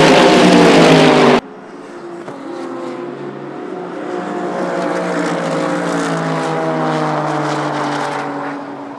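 Race car engines running hard on a circuit; the sound cuts off abruptly about a second and a half in. Then the liquid-hydrogen-fuelled Toyota Corolla race car's engine passes at high revs, its pitch slowly falling as it grows louder and then fades near the end.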